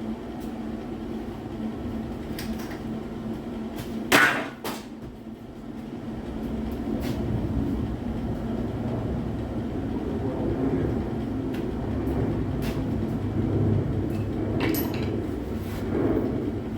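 Metal bodywork noises: a steady low hum, a sharp clank about four seconds in, then a low rumbling noise that builds and carries on, with a second, lighter clank near the end.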